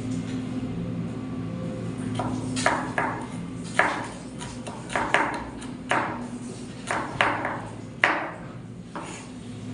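Knife chopping vegetables on a cutting board: separate sharp strikes, about one a second and sometimes two in quick succession, each with a short ringing tail, starting about two seconds in. A steady low hum runs underneath.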